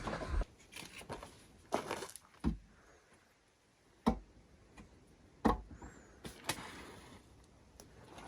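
A handful of separate short knocks and clunks, spaced about a second apart, over a faint background.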